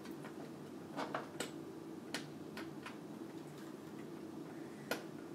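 Light scattered clicks and taps of a plastic cable connector being handled and pushed onto a motherboard's USB 2.0 header, the sharpest click near the end, over a faint steady hum.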